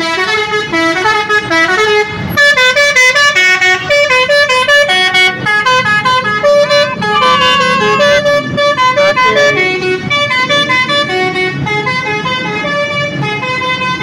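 A bus's Basuri 'telolet' musical horn playing a fast, stepping tune of loud horn notes that jump between several pitches, sounding continuously.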